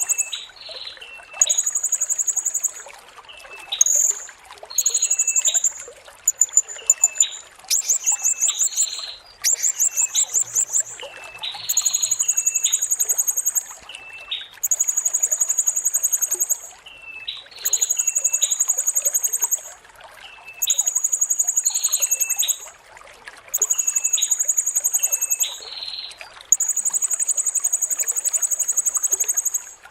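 Blue-crowned hanging parrot (serindit) singing: very high, shrill trills about one and a half to two seconds long, repeated every few seconds, with short lower notes between them.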